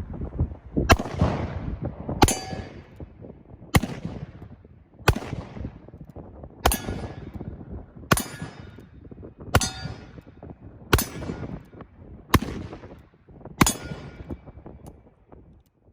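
Two single-action .45 Colt revolvers, one with black powder and one with Triple Seven substitute loads, firing ten shots in steady succession about one and a half seconds apart, each shot with a short ringing tail.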